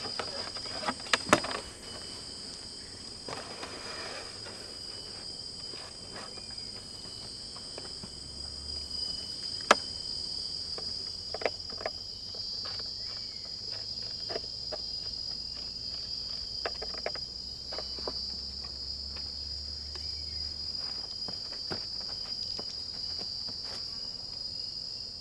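A steady, high insect chorus that swells and fades every few seconds, with scattered sharp clicks over it, the loudest about ten seconds in.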